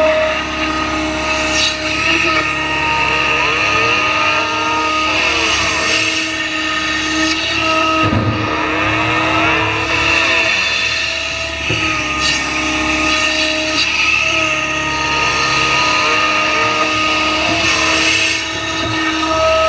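Hydraulic excavator heard up close from on the machine, its engine and hydraulics running under load as it digs, swings and lifts a bucket of dirt. A steady whine whose pitch sweeps up and down several times as the boom works, with a few sharp clunks.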